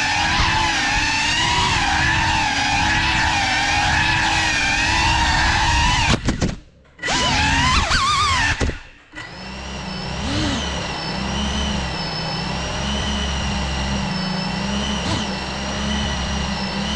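Small FPV drone's motors and propellers whining, the pitch wavering up and down with the throttle. About six seconds in the sound drops away for a moment and sweeps in pitch, then settles into a steadier whine.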